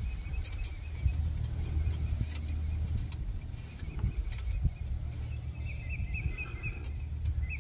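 Wind buffeting the microphone with an uneven low rumble, while small birds chirp in quick repeated series. Scattered light clicks and taps come from hands working in the engine bay.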